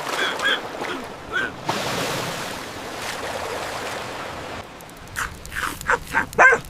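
An ocean wave surging and washing for about three seconds as a cartoon sound effect, with short high vocal sounds before and after it.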